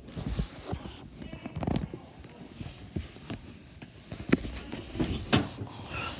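Handling noise from a phone held against clothing: fabric rustling and irregular soft knocks and bumps on the microphone.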